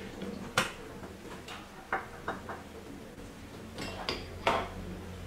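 A series of sharp clicks and knocks as an LED ring light is fitted onto a trinocular microscope and its cable is handled, the loudest about half a second in.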